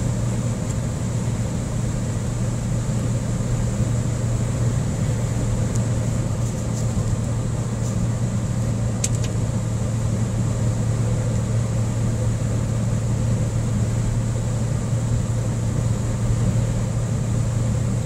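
Steady cabin noise of a vehicle driving at highway speed, engine and road noise together, with a constant low drone.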